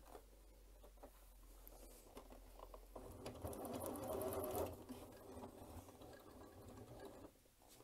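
Janome C30 sewing machine running, stitching through fabric and elastic; it grows louder about three seconds in, then eases off again.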